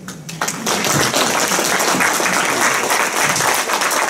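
Audience applauding, swelling quickly over the first half-second and then holding steady.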